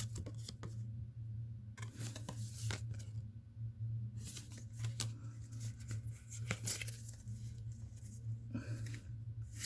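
Foil wrapper of a Pokémon card booster pack being torn open and crinkled, with cards handled in short, irregular crackles and scrapes. A steady low hum runs underneath.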